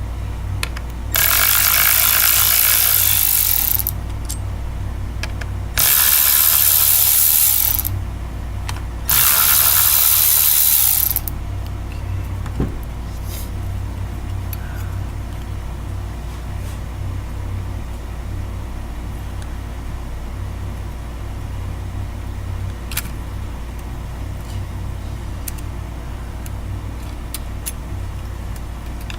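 A power tool runs in three bursts of two to three seconds each, with short pauses between. After them a steady low hum continues, with a few light clicks of parts being handled.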